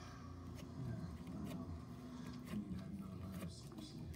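Thick slime being stretched and handled, giving a few short, soft sticky clicks and pops over a low steady hum.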